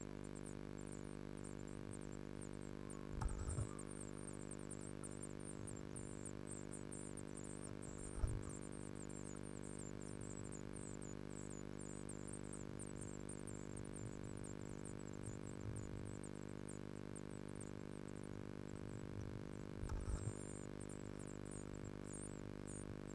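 Steady electrical hum from the nest-box camera under a rapid, high-pitched chittering of blue tit nestlings begging. Three dull knocks, the loudest sounds, come from birds moving in the wooden box, the last as an adult arrives with food.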